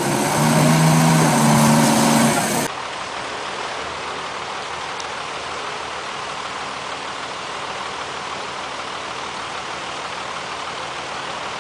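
Heavy machinery engine noise: a loud, steady low drone for the first couple of seconds, then an abrupt cut to a quieter, even engine-like noise.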